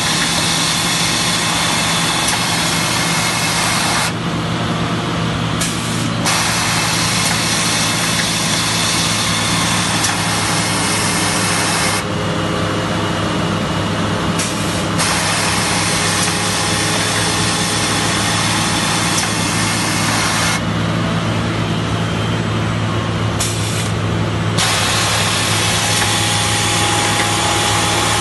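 Montex automatic sewing unit running, its overlock sewing heads and belt conveyors making a steady mechanical hum with a dense high whir on top. The high whir drops out for a couple of seconds three times, roughly every eight seconds, while the hum carries on.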